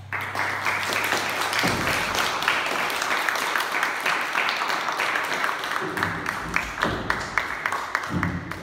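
Audience applauding, breaking out suddenly as the last cello note dies away and holding at an even level.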